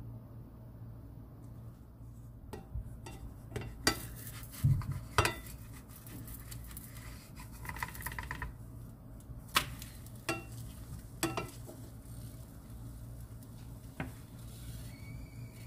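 A wooden spatula knocking and scraping against a stainless-steel frying pan several times as a crepe is loosened and flipped, over a steady low hum.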